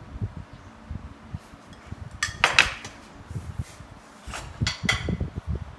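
Metal spoon clinking against dishes. There is a loud clatter of a few quick clinks about two and a half seconds in, then three lighter clinks a couple of seconds later, over soft knocks of handling.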